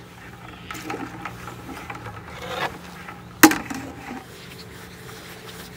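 Scraping and rustling handling noises, then one sharp, loud knock about three and a half seconds in: a Dungeness crab dropped into a plastic bucket.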